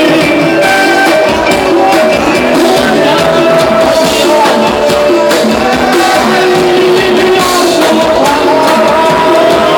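Loud Thai ramwong dance music, with a drum beat under held melody lines.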